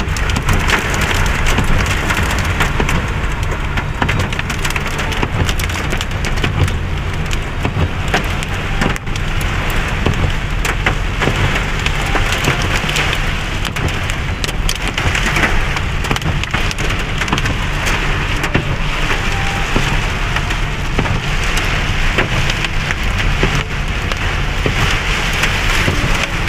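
Heavy rain mixed with hail drumming on a car's roof and windscreen: a dense, loud hiss full of rapid hard ticks, over the steady low rumble of the car driving through water on the road.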